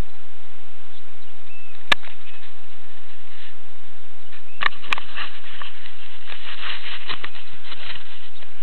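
Sharp clicks and light scratching, with no motor running: one click about two seconds in, two close together near the middle, then a run of small scratchy clicks.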